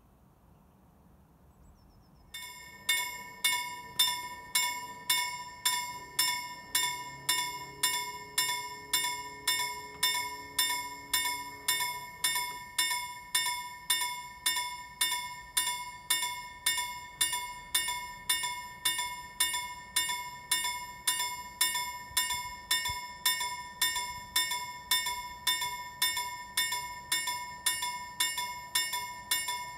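Railway level crossing warning bell starts about two seconds in and rings on in even, repeated strikes a little under two a second, signalling that a train is approaching and the barriers are closing.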